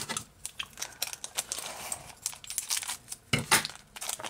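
Thin clear plastic toy wrapper crinkling and tearing as it is handled and opened, a run of irregular crackles with a louder crackle a little over three seconds in.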